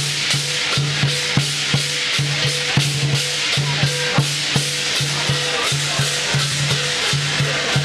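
Chinese lion dance percussion: a big drum beating a steady, even rhythm under continuous clashing cymbals.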